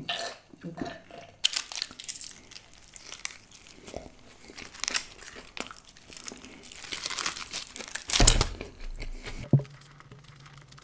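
Aluminium foil wrapping crinkling and tearing as a foil-wrapped roll is handled and bitten into, close to the microphone, with bites and chewing among the crackles. The loudest moment is a heavy crunch or thump about eight seconds in.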